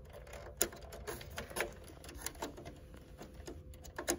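Faint, irregular light clicks and taps of a RAM module's circuit board being handled and pressed against a motherboard's plastic memory slot.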